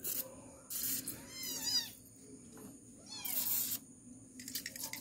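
A WD-40 aerosol can spraying in two short hissing bursts, about a second in and again past three seconds, with a cat meowing several times in between. A few light clicks follow near the end.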